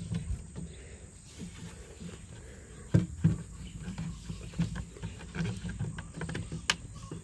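Wooden cage framing being handled and wedged into place: a few short wooden knocks, two about three seconds in and another near the end, over a low rumble.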